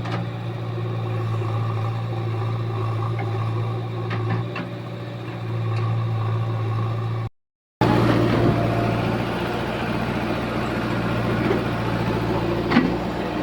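A steady low motor hum that cuts out briefly about seven seconds in.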